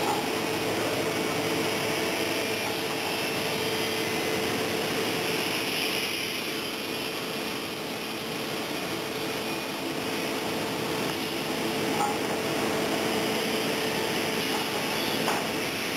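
Steady drone of running woodworking machinery with a constant hum, and two light clicks near the end.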